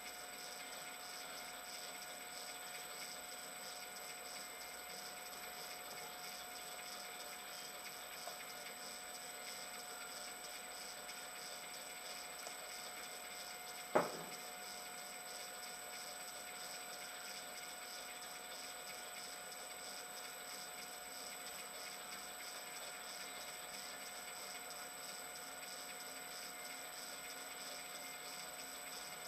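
Steady hiss with faint constant whine tones, the self-noise of a camera recording inside a sealed housing. A single sharp click comes about halfway through.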